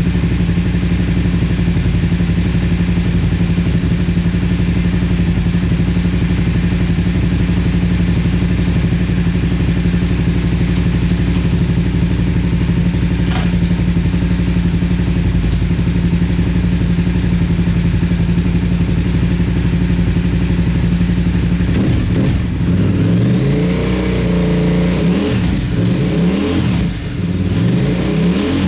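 Motorcycle engine idling steadily, then revved up and down several times in quick succession over the last several seconds.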